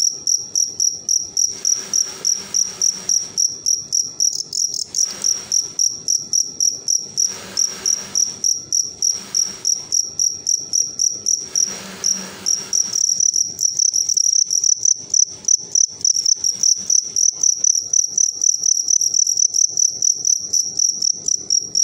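Male fighting crickets chirping: a high-pitched chirp repeating about three times a second throughout, growing louder about two-thirds of the way through. In the first half there are several short bursts of rustling noise while the two crickets grapple.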